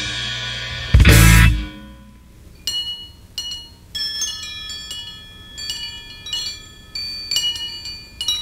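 Bass guitar and drums of a math rock duo end on a last loud hit about a second in, which rings away. Then sparse, high chime notes ring out one at a time at several pitches.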